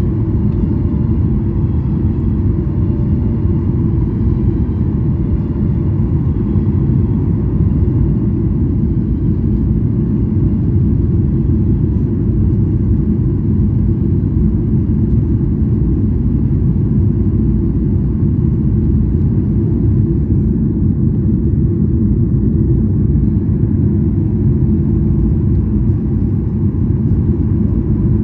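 Airliner's engines and airflow making a steady low rumble during its landing approach, with a faint steady whine above it.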